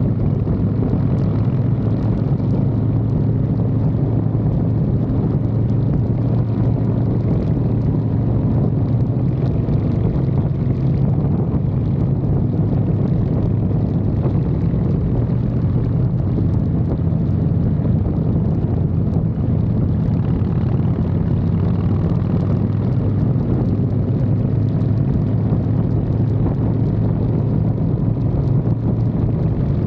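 Harley-Davidson Fat Boy's V-twin engine running steadily at cruising speed, heard up close from the frame beside the engine, with wind noise on the microphone.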